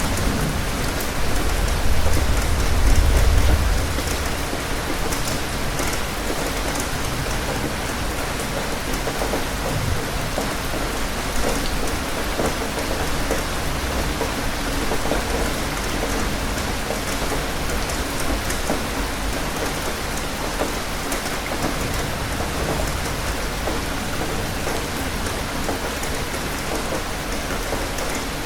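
Steady heavy rain falling, with a low roll of thunder in the first few seconds that fades away.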